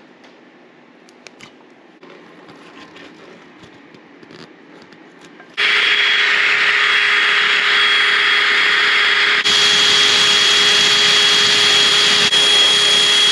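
Faint scraping and ticking of a blade scraper picking old gasket off an engine oil pan. About five and a half seconds in, a wire brush wheel in a drill starts suddenly and runs loud and steady with a high whine, scrubbing old gasket off the intake manifold's gasket surface.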